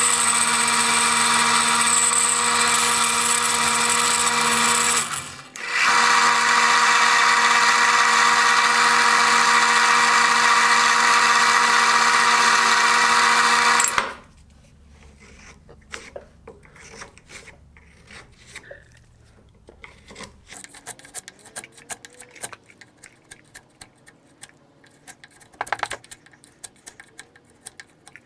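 A power tool running steadily with a high whine. It drops out for a moment about five seconds in, runs again, and stops abruptly about halfway through. After it stops there are only light clicks and taps.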